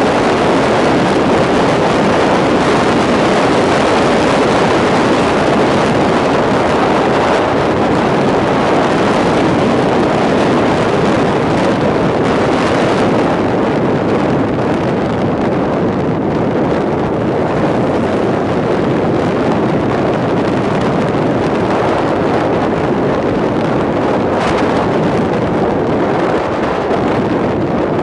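Steady wind rush on the microphone of a moving motorcycle, with the motorcycle's engine and tyre noise mixed in underneath.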